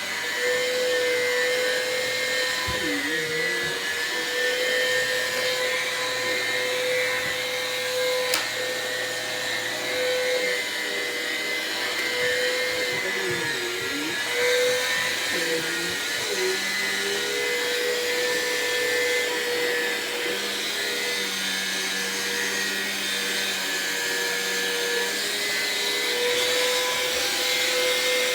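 Vacuum cleaner motor running steadily with a high hum, its pitch dipping briefly a few times. There is one sharp click about eight seconds in.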